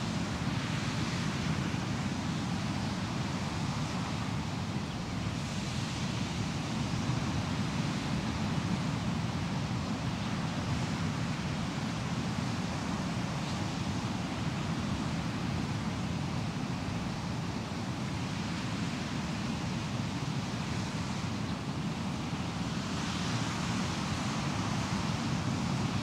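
Ocean waves breaking on the shore: a steady wash of surf, with the hiss swelling a few times as waves break, strongest near the end.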